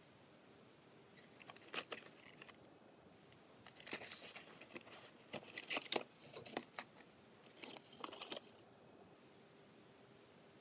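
A small cardboard box of flash-banger firecrackers being handled and opened, with the firecrackers inside moved about: scattered clicks, scrapes and rustles of card in three short spells.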